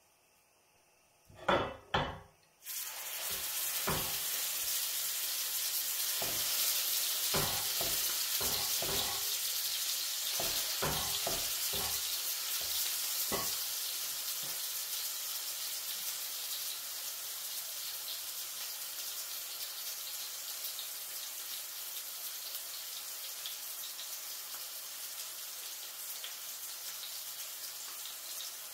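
Minced lamb kebab patty sizzling in hot oil in a frying pan: a couple of knocks about a second and a half in, then a steady sizzle starts suddenly and keeps going, easing slightly. Scattered light knocks over the first half.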